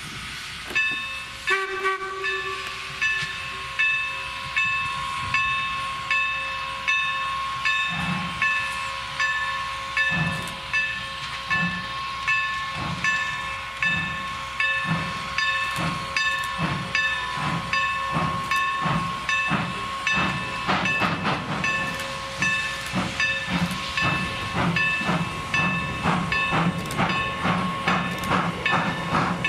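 Two steam locomotives, Norfolk & Western J-class 4-8-4 No. 611 and Baldwin 4-8-0 No. 475, double-heading a train past and working hard: their exhaust chuffs come in a steady beat that grows quicker later on, over a steady high steam hiss. In the last part the coach wheels click over the rail joints.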